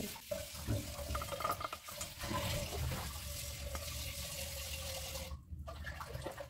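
Silicone spatula stirring chopped nuts into thick melted dark chocolate in a glass bowl: a wet, scraping swish with small knocks against the glass, over a faint steady hum.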